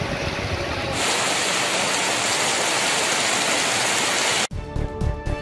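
Heavy rain pouring down on a street, a steady hiss, with a low traffic rumble under it in the first second. About four and a half seconds in, the rain cuts off and a music jingle begins.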